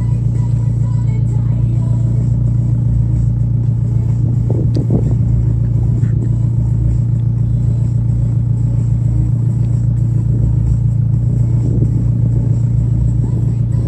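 Steady mechanical hum from a Peugeot 307 CC while its electric folding hardtop retracts into the boot, with a brief rattle about five seconds in.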